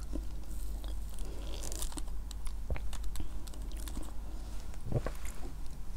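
Close-miked chewing and small mouth clicks of a person eating sakura chiffon cake with whipped cream, with a plastic fork pressing down through the cake later on.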